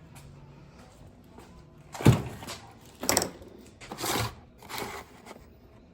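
Four knocks about a second apart, the first the loudest, over a faint low background.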